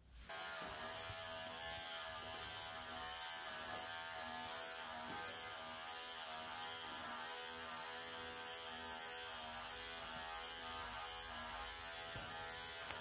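Wahl electric pet clippers running steadily with an even hum as they are worked into a cat's matted coat.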